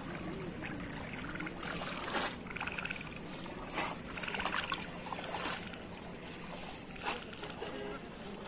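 Shallow pond water splashing and sloshing as a bamboo polo fish trap is plunged down into it and dragged through it, with about five separate sharp splashes spread over a few seconds.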